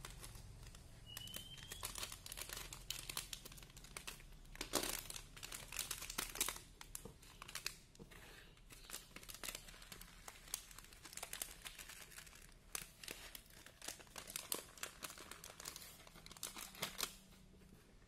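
Plastic bird-feed bag crinkling and crackling as it is cut open with a box cutter and handled, then tipped so pellets pour into a plastic bowl. The crackles are irregular and come thick and fast, with the loudest about four and a half seconds in.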